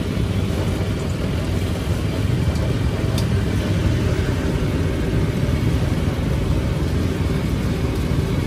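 Steady low rumble of motor traffic, with one faint tick about three seconds in.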